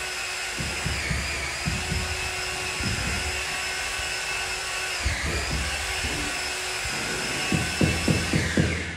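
Electric power tool motor running with a high whine that sags in pitch twice as it takes load, then is switched off and winds down just before the end. Irregular low knocks sound underneath.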